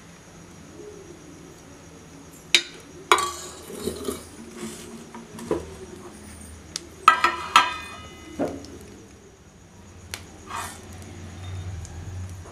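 Metal kitchen utensils clinking and knocking against each other a handful of times, with two clusters of ringing metallic strikes about three seconds in and about seven seconds in.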